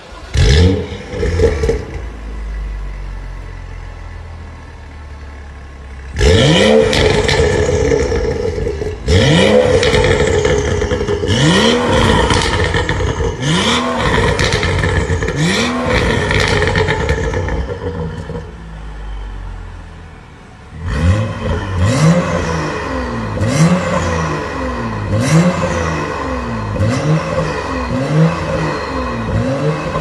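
BMW M235i's turbocharged straight-six through an Armytrix valvetronic exhaust, starting with a loud flare and settling to idle. It is then revved in repeated throttle blips, each rising and falling back: first five slower blips a couple of seconds apart, then after a short idle a quicker run of about one blip a second.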